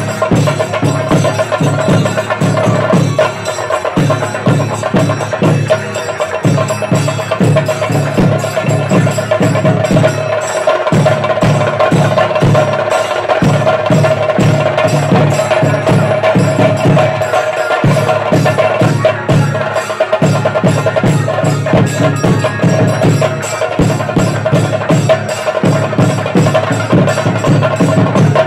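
Temple drumming in a fast, regular rhythm with a steady ringing tone held over it. The drumming breaks off briefly every few seconds and picks up again.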